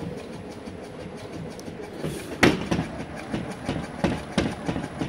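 Rhythmic rattling and knocking at about three beats a second from a rotary subwoofer driven with a 3 Hz sine wave shaking its own mounting and the room around it. The knocks get much louder about halfway through.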